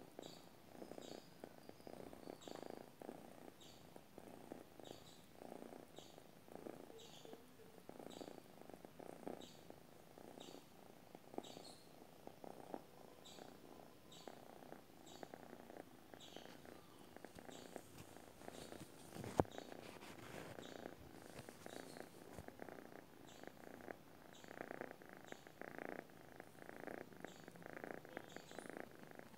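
Tabby-and-white cat purring quietly in its sleep, the purr swelling and fading with each breath. A single sharp click about two-thirds of the way through.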